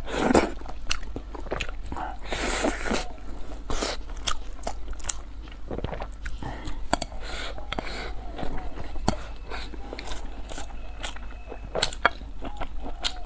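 A person chewing and biting mouthfuls of rice and braised meat close to the microphone: a run of short, wet mouth clicks and smacks.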